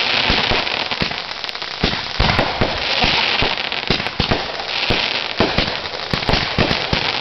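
Fireworks going off in rapid succession: many sharp bangs and pops with patches of crackling, dense and without let-up.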